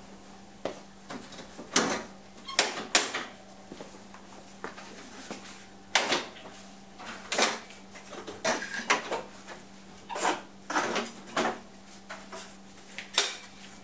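A Chevrolet Silverado's clipped-in grille being pried and pulled off by hand: a string of irregular sharp snaps and knocks as the plastic clips let go and the grille shifts against the truck's front end. A steady low hum runs underneath.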